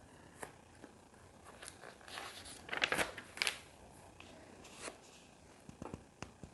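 Small plastic LEGO pieces clicking and rattling as they are handled and snapped together, with a busier flurry of clicking and rustling about two to three and a half seconds in.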